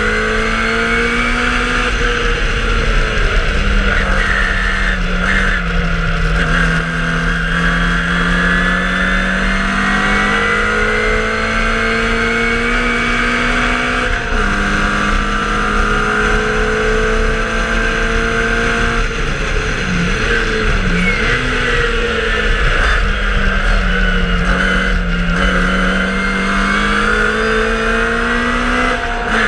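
A racing MG Midget Mk1's BMC A-series four-cylinder engine heard from on board, running hard under load with a rush of wind. Its pitch rises and falls as the car accelerates and lifts through the corners, with sharp breaks about halfway through and near the end.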